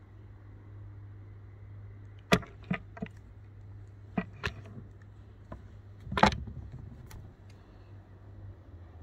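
Handling noise from an old Brno-made Persian Mauser rifle: a handful of short sharp clicks and knocks of its metal fittings and sling swivel, the loudest about six seconds in, over a steady low hum.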